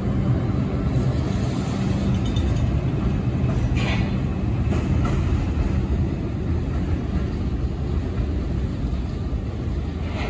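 New York City subway train running on the rails: a steady rumble with a low, even motor hum. A brief higher-pitched screech comes about four seconds in and another near the end.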